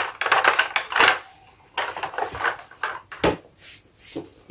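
Hard plastic toy vehicles clattering and knocking as they are handled and moved about, a series of short irregular knocks.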